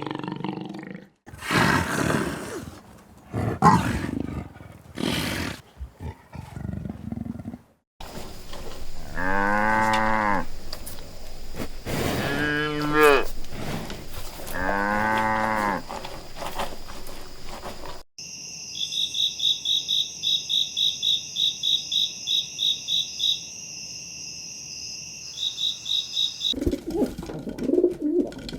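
A run of different animal calls one after another: a few short calls, then three long pitched calls with short gaps between them, then a fast, high, even pulsing of about five beats a second lasting several seconds.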